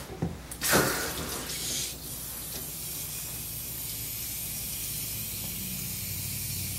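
Water spraying from a pistol-grip hose nozzle onto a wet dog in a grooming tub. The spray comes on with a rush about a second in, then runs as a steady hiss.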